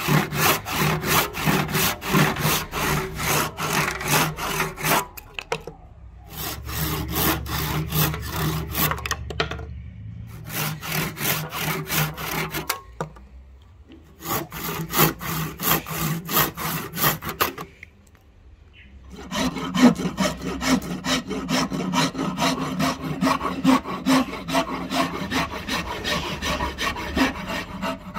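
A handsaw cutting a hard ebony handle blank in quick back-and-forth strokes, in four runs with short pauses. About nineteen seconds in it gives way to a flat file rasping back and forth along the ebony.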